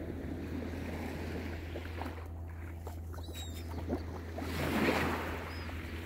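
Small waves of a calm sea lapping on the beach, one washing in louder about five seconds in.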